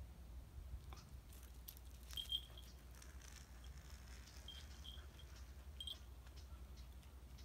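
Faint outdoor quiet with a few short, high bird chirps, a brief pair about two seconds in and more near the end, over light scattered ticks and a low steady hum.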